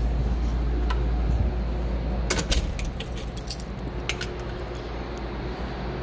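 A bunch of keys jangling in a hand as a door is handled, in two clusters of sharp clinks about two and a half and four seconds in, over the steady low hum of mechanical-room equipment.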